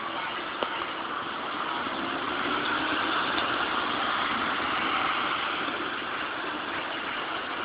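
Street traffic noise from cars, a steady hiss that grows louder about two and a half seconds in and eases off again near the end, as of a car going by.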